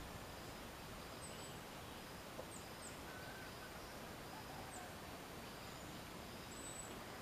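Quiet forest background: a steady hiss with a scattering of faint, very high, short chirps from small distant creatures.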